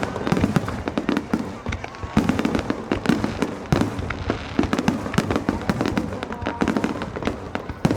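Fireworks going off in rapid succession, a dense run of many sharp bangs and crackles with no pause.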